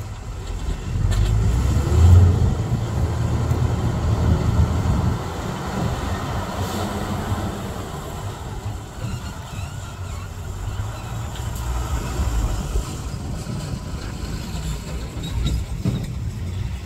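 Diesel dump truck engine running under load while the hydraulic bed is raised to tip a load of soil. It is loudest in the first few seconds, then settles to a steadier run.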